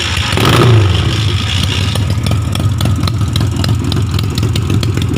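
Yamaha MX King 150cc single-cylinder motorcycle engine running, with a brief rise in revs about half a second in. Many small, irregular ticks sound over the steady low drone.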